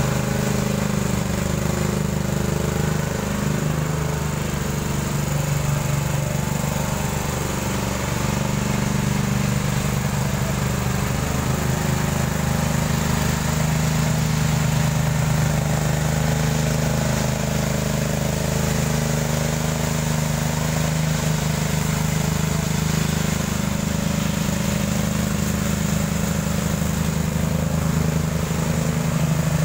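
Ride-on concrete power trowel with twin bladed rotors, its engine running steadily as it smooths fresh concrete.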